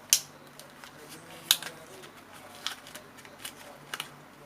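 Small hard plastic objects being handled: sharp clicks and taps of AA batteries and the toy washing machine's plastic battery compartment, about five in four seconds, the loudest right at the start.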